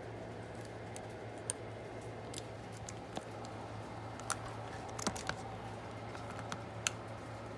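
Scattered light clicks and taps of small parts and tools being handled, over a steady low hum.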